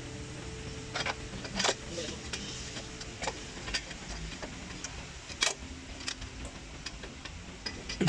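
Scattered light clicks and knocks of metal parts and tools being handled by hand inside a car's wheel arch, around the suspension strut.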